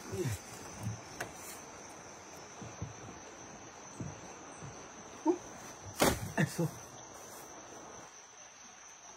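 Cut sugarcane stalks knocking against each other and against a wooden boat as they are gathered and lifted out, in scattered knocks, the loudest about six seconds in. Insects chirr steadily in the background with a constant high whine.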